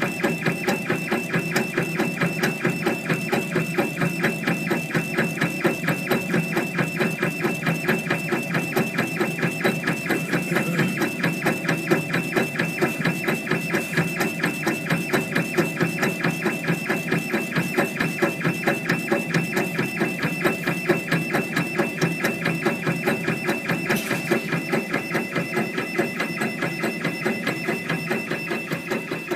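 Mini laser engraving machine running a raster engraving pass: its stepper motors drive the laser head back and forth, giving a buzzing whine that pulses in a quick, even rhythm, several strokes a second.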